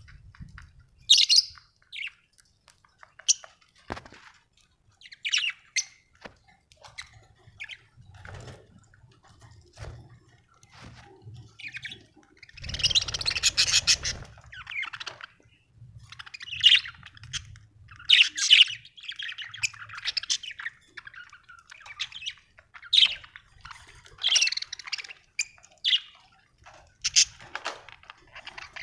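Budgerigar chirping and warbling: a run of short, sharp high-pitched chirps and squawks, with a longer stretch of busy chatter about halfway through.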